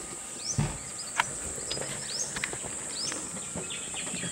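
Birds calling over a steady high-pitched insect drone: short whistled notes that sweep down in pitch come about once a second, with scattered chirps and clicks. A soft thump comes about half a second in.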